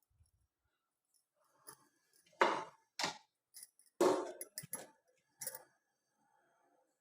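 Short bursts of kitchen handling noise: containers and utensils clinking and rustling as they are moved and set down, about half a dozen times, loudest about two and a half and four seconds in.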